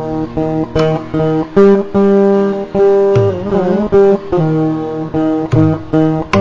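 Carnatic melody played on a veena: single plucked notes held and bent, with wavering gamaka ornaments on several of them.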